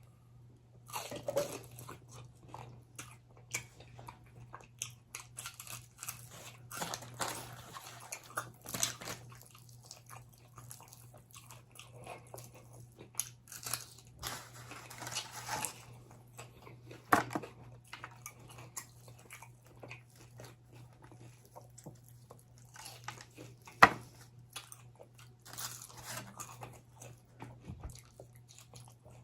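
Close-up eating sounds: chewing and biting into crispy fried chicken wings, with wet mouth smacks and irregular crunches and clicks, one sharp click about 24 seconds in.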